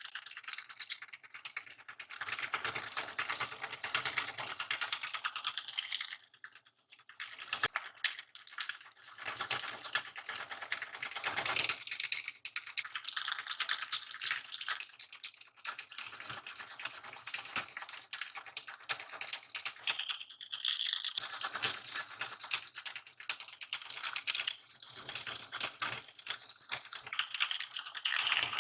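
Candy being crushed in a meat grinder: dense, rapid crackling and crunching as the hard pieces break up, with a short lull about six seconds in.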